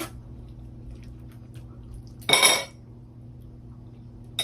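Cutlery striking a dish once, sharply, about two seconds in, with a brief ring.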